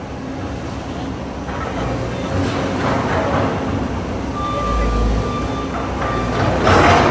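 Komatsu PC200 hydraulic excavator's diesel engine running under load as the machine works, growing louder, with a steady high whine partway through and a loud clatter near the end.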